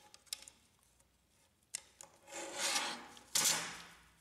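A few light metal clicks as a pin is worked out of a laser printer fuser unit's metal side bracket with a tool, then two short scraping rubs past halfway as the parts are handled.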